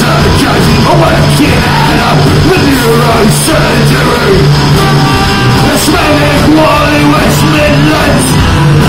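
Punk rock band playing live, very loud on the recording: electric guitars, bass and drums, with a vocalist yelling and singing into the microphone.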